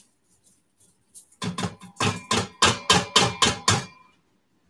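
A mesh strainer rapped about nine times in quick succession against the rim of the Instant Pot's stainless steel inner pot, each knock leaving a short metallic ring, to shake the last of the rinsed rice out.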